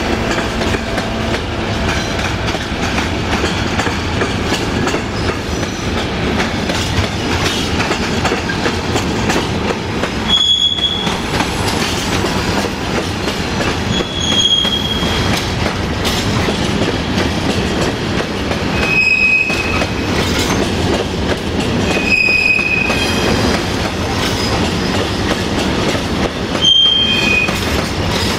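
A long freight train of covered sliding-wall wagons rolling past close by, its wheels rumbling steadily on the rails. Brief high-pitched wheel squeals come about five times.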